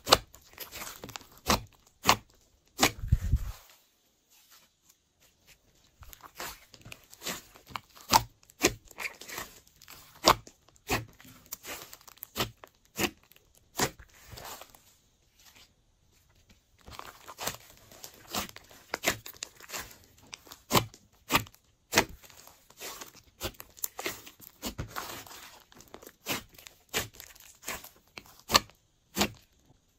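Hands squeezing, poking and stretching a large mass of glossy pink slime: a steady run of sticky clicks, pops and crackles, with a short low squelch about three seconds in and two brief pauses.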